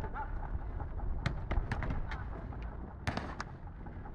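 Footnet ball struck back and forth in a rally: a series of sharp knocks from kicks and bounces on pavement, the loudest cluster about three seconds in.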